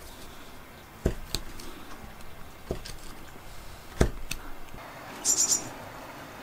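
Hand-pushed carving gouge cutting into a wooden log: a few sharp clicks and knocks as the edge bites and chips break away, and a short rattly scrape about five seconds in.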